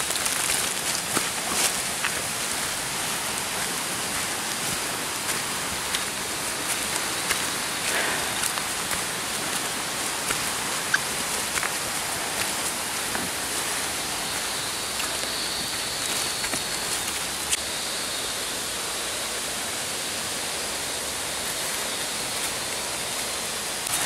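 Steady rushing hiss of a waterfall up ahead, with scattered footsteps on the leaf-littered trail.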